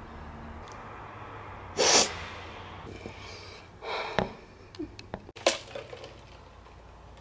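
A loud breath out about two seconds in and another breath near four seconds, followed by a few short knocks and clicks from a camera being handled and repositioned.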